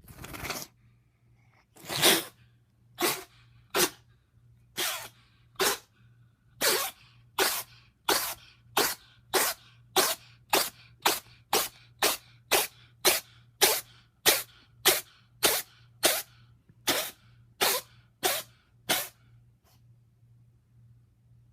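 A cat sneezing over and over in a long fit, about two dozen sharp sneezes. They come about one a second at first, then quicken to about two a second before stopping. The fit is caused by a bad sinus infection.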